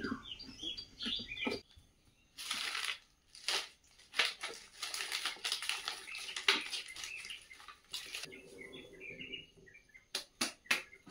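Small sticks of firewood being handled and laid into a wood-burning stone stove as the fire is lit: irregular sharp snaps, cracks and rustling as the kindling catches, denser in the middle.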